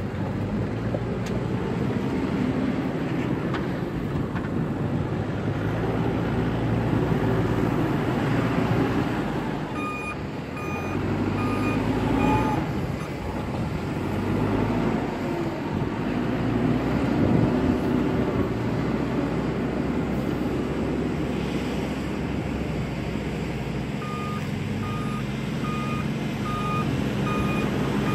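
Cat 432F backhoe loader's diesel engine running under load as it manoeuvres, its pitch rising and falling as it works. Its reversing alarm beeps steadily in two spells, about ten seconds in and again near the end, as the machine backs up.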